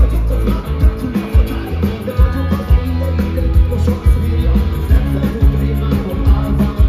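Live rock band playing, with electric guitar, drums keeping a steady beat, and a male singer singing into a microphone.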